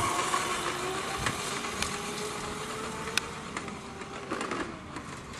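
Motor scooter's small motor running with a steady whine, its pitch creeping up and then dropping about four and a half seconds in, growing fainter throughout, with a few faint ticks.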